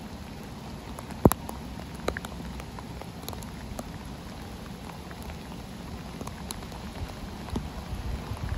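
Steady rain falling, with scattered sharp taps of drops striking close by, one louder just over a second in.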